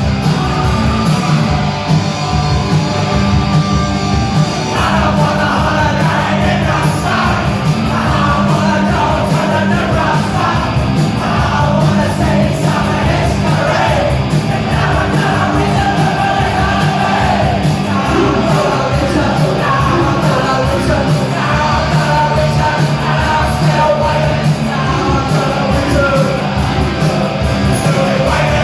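Live punk rock band playing loud, with a shouted lead vocal that comes in about five seconds in, heard in a concert hall.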